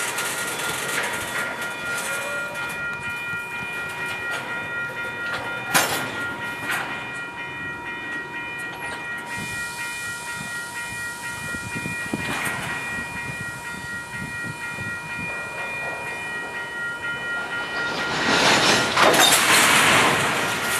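Freight cars rolling past on the rails with clicking wheels, under several steady high-pitched tones. A sharp bang comes about six seconds in and a smaller one about twelve seconds in. A louder rush of noise swells near the end.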